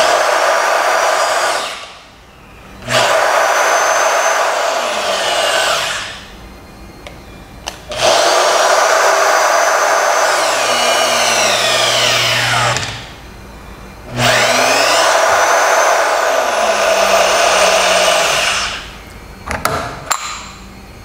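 AGP PF8 press-fitting tool's 550-watt electric motor running in four separate bursts of about two to five seconds as it drives the mechanical ram, its whine sliding down in pitch during the longer runs. A few short clicks follow near the end.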